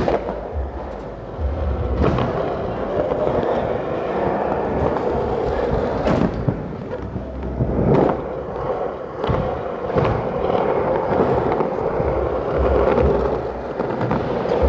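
Wheels rolling over a concrete skatepark floor: a steady rolling noise with a few sharp knocks and clacks along the way.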